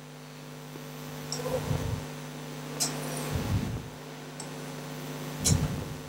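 Steady electrical hum, with a few faint clicks and soft low thumps scattered through it. The loudest is a click and thump together about five and a half seconds in.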